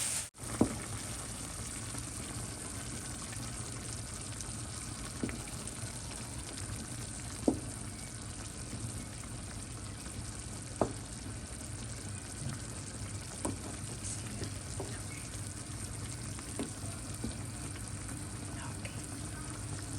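Pot of Portuguese braised peas with chouriço and bacon cooking on the stove: a steady sizzling hiss with a few sharp, scattered pops.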